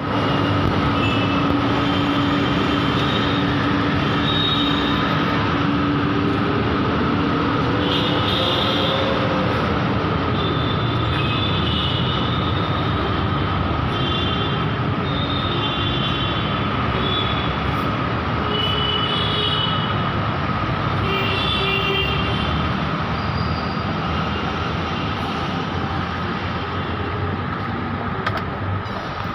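Steady running noise of a moving vehicle, with a constant whine and short high squeals coming and going; it eases slightly near the end.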